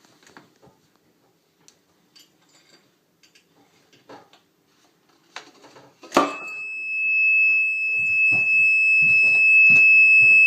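A homemade door alarm's buzzer goes off: about six seconds in something knocks down onto it, and the buzzer starts a loud, steady, high-pitched tone that holds, set off by the Rube Goldberg chain of a falling water bottle and cup.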